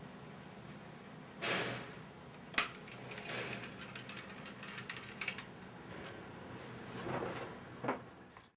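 Hand-operated paperboard automaton being worked by its lever: paperboard, wood and metal parts sliding and rubbing, with a sharp click about two and a half seconds in and another click near the end.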